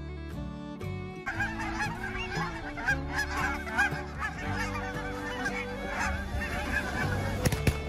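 A large flock of Canada geese honking all at once, many overlapping calls starting about a second in, over background music. Near the end, a quick run of sharp clicks or knocks.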